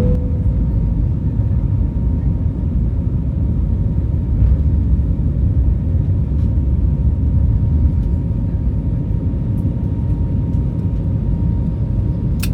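Airliner cabin noise at a window seat: a steady low rumble of the engines and airflow, with a faint steady whine above it. A sharp click near the end.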